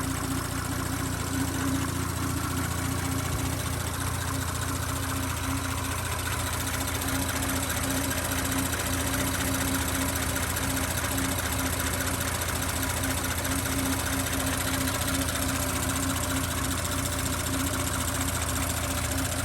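2018 Audi S5's EA839 3.0-litre turbocharged V6 idling steadily, heard in the engine bay, with the noise of the high-pressure fuel pump and a little injector noise on top. There is no other tapping: a normal-sounding engine with no sign of failing rockers or piston slap.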